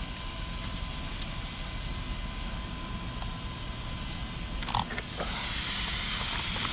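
Handling noises from an opened 1/7-scale RC car chassis: a few light clicks and a short, sharper knock or creak about five seconds in, over steady background hiss.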